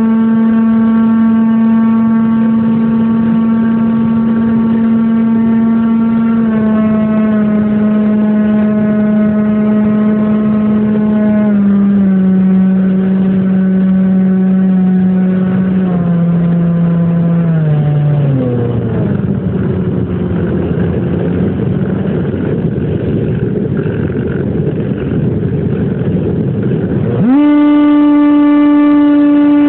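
FPV model airplane's motor and propeller heard from the onboard camera: a steady whine that steps down in pitch several times as the throttle comes back. It then sinks under a rushing airflow noise while the plane glides, and near the end jumps back to a higher, steady whine under throttle again.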